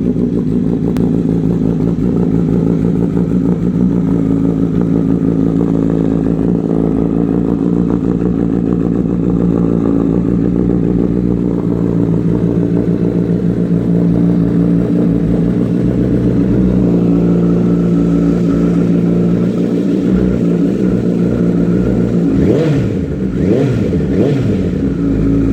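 Honda CBR1000RR Fireblade's inline-four engine idling steadily through its exhaust, then revved up and back down in a few quick throttle blips near the end.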